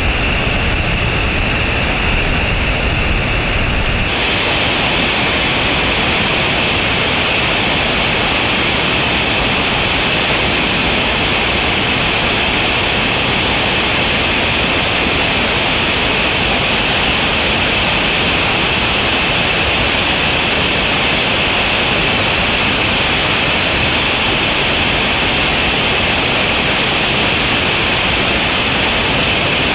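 Whitewater creek in high water rushing loudly and steadily over a waterfall and through rapids. About four seconds in it changes abruptly from a deeper rumble to a brighter hiss.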